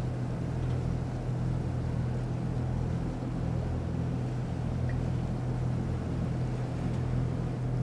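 Motor yacht's engine running steadily under way: a constant low hum whose pitch does not change.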